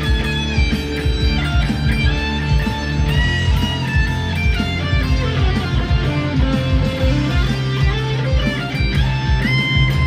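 PRS 245 electric guitar played through high-gain distortion at an up-tempo pace: fast picked riffs with low chugging and held lead notes bent up in pitch, and a run of notes that steps downward midway.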